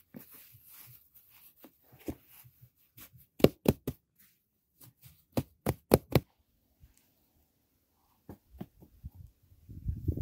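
Hands patting and pressing freshly laid grass turf into the ground: two quick clusters of sharp taps with scattered softer ones between, then a denser rustling scrape near the end as a piece of sod is handled.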